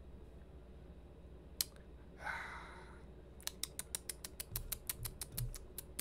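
A single click, a brief soft hiss, then a rapid run of small clicks, roughly eight a second, from a computer mouse's scroll wheel as a web page is scrolled.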